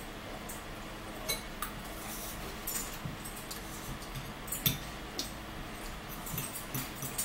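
Metal forks clinking and scraping against plates and a bowl while eating: irregular short clinks, the loudest about four and a half seconds in.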